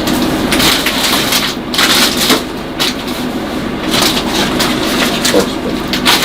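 Plastic packaging rustling and crinkling in short, irregular spells, loudest about two seconds in and again near the end.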